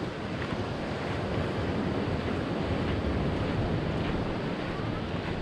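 Steady rushing of wind on the microphone mixed with ocean surf breaking along the shore.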